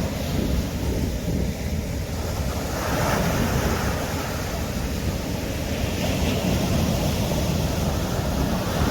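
Ocean surf breaking and washing onto the beach, a steady rush that swells from about three seconds in, with wind buffeting the microphone.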